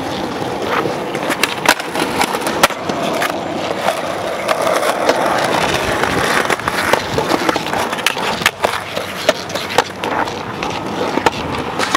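Skateboard wheels rolling on smooth concrete: a steady rumble, broken by many short sharp clicks and knocks as the board rolls along.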